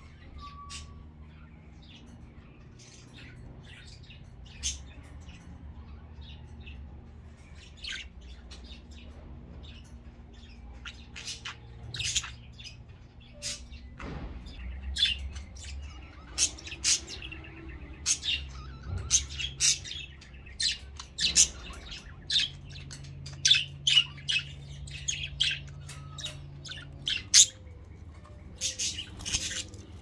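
Budgerigars chirping: short, sharp, high chirps, sparse at first and coming thick and fast from about halfway through, over a low steady hum.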